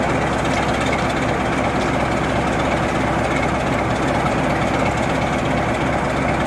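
Class 47 diesel locomotive's Sulzer twin-bank twelve-cylinder engine running steadily at low power.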